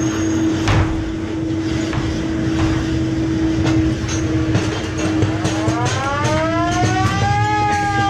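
Ghost-train car rumbling and clattering along its track under a steady hum. About five seconds in, a siren-like wail rises, peaks and begins to fall slowly.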